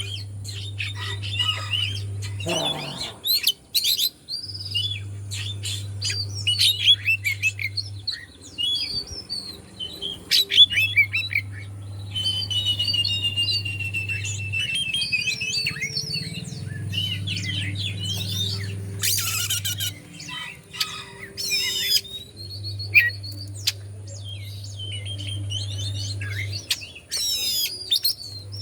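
Oriental magpie-robin (kacer) singing a long, varied song of clear whistles, rising and falling glides, quick trills and a few harsh, scratchy notes. A low hum switches on and off every few seconds underneath.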